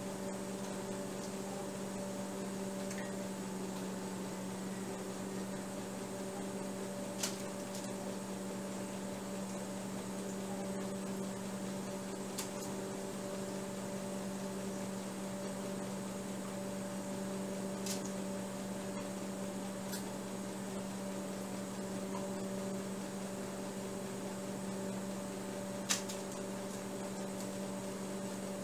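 Steady electrical hum, with a few faint, brief clicks scattered through it.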